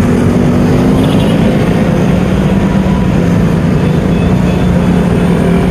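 Motorcycle being ridden through city traffic, heard from the rider's seat: the engine holds a steady note over an even rushing of road and air noise.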